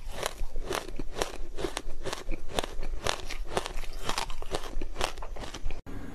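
Ice being bitten and crunched between the teeth close to the microphone: a quick run of crisp crunches, about three a second, breaking off abruptly near the end.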